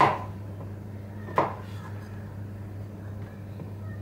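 Kitchen knife cutting through button mushrooms and knocking on a plastic cutting board: two sharp taps, one at the start and one about a second and a half later.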